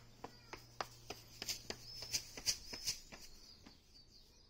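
A run of about a dozen sharp, irregular clicks and taps that stops about three and a half seconds in, over faint high bird chirping.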